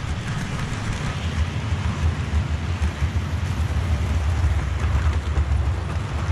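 Model railway trains running past close by: a rake of goods wagons and then a locomotive with coaches, making a steady low rumble with a grainy rattle of wheels on rail above it.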